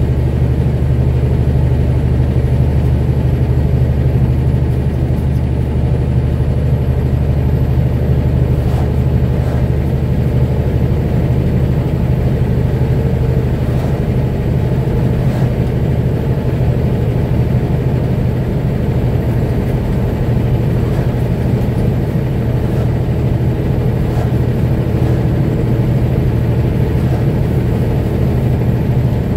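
Car driving at a steady cruising speed: a constant low drone of engine and tyre noise that holds level throughout.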